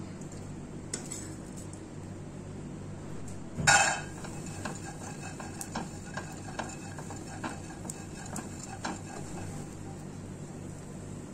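Plastic slotted spatula stirring, scraping and tapping against a nonstick pot while seeds and raisins are dry-roasted, giving scattered light clicks. A louder clatter comes a little under four seconds in, over a steady low hum.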